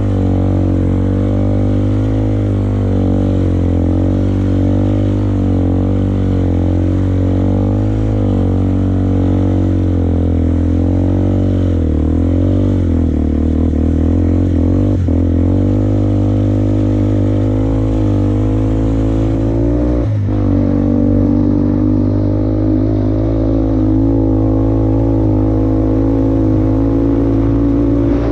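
2004 Yamaha Bear Tracker ATV's single-cylinder four-stroke engine, breathing through an FMF aftermarket exhaust, running under way, its pitch rising and falling a little with the throttle. Two short knocks come about halfway and about two-thirds of the way through.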